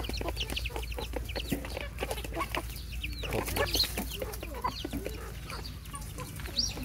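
Chickens clucking, with many short high chirps throughout.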